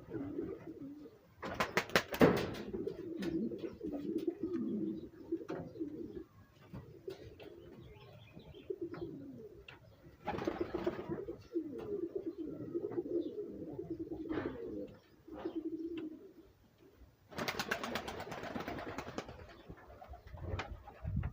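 Domestic pigeons cooing in repeated low, rolling phrases, with three bursts of rapid wingbeats: about two seconds in, around ten seconds in, and near the end.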